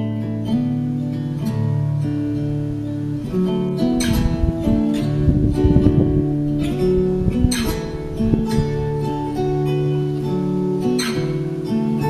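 Acoustic guitar music, chords held and changing, with a few sharp strums standing out. A low rumble sits under it about four to six seconds in.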